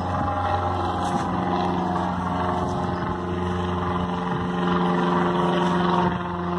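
Steady propeller hum of a multi-rotor camera drone in flight. Its pitch steps up about a second in and then holds.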